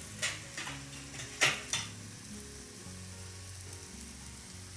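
Ghee sizzling under a stuffed whole-wheat paratha frying on a hot iron tawa, a steady hiss with a few sharp crackles of spitting ghee in the first two seconds, the loudest about a second and a half in.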